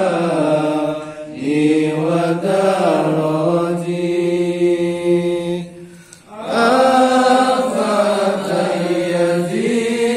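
Unaccompanied male chanting of sholawat, devotional Arabic praise of the Prophet, in long held notes that glide slowly up and down. The chant breaks briefly about a second in and again just before six seconds, then resumes.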